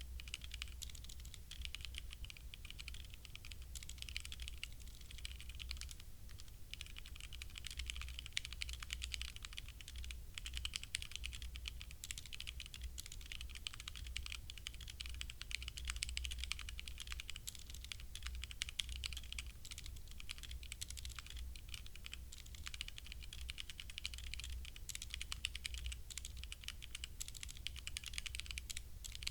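Typing on a HyperX Alloy Origins Core mechanical keyboard with HyperX Red linear switches: a fast, continuous patter of key clacks with a few brief pauses.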